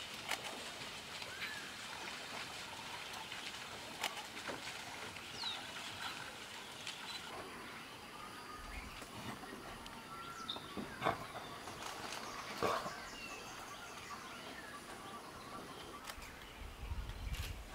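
Natural ambience of a forest clearing: scattered bird chirps and calls over a steady background hiss, broken by a few sharp clicks or knocks. A low rumble comes in near the end.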